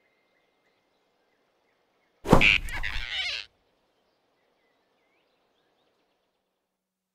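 A sudden swishing whoosh with a thump about two seconds in, a cartoon grab sound effect as the big rabbit snatches the flying squirrel, dying away within about a second. Before and after it, near silence.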